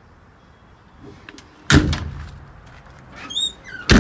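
Service-truck utility body compartment doors slammed shut twice, about two seconds apart, with a short squeak just before the second slam.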